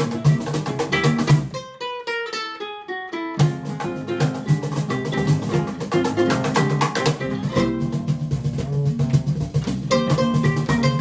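Live swing jazz on ukulele, upright bass and cajon. About two seconds in, the bass and cajon stop for a quick descending ukulele run lasting under two seconds, then the whole trio comes back in.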